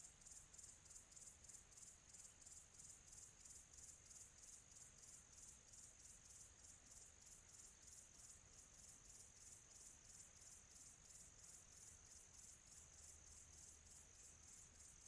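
Crickets chirping in a faint, quiet ambience: a high-pitched pulsing at about four chirps a second, with a soft low rumble beneath.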